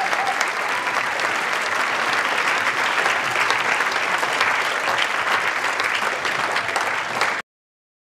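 Audience applauding and cheering, a dense wash of clapping that cuts off abruptly near the end.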